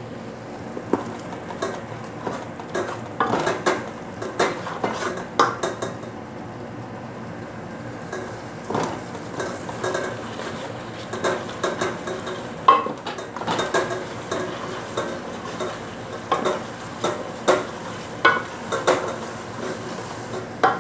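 Wooden spoon stirring a thick tomato and spice paste in an aluminium pot, knocking and scraping irregularly against the pot's bottom and sides, over a steady low hum.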